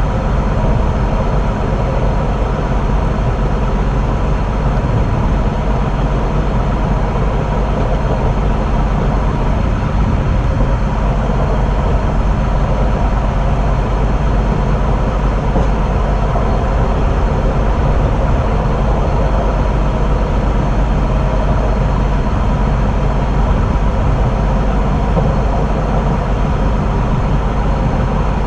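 Steady running noise of a rail vehicle travelling along the track: an even, unbroken rumble with a faint constant hum, unchanged throughout.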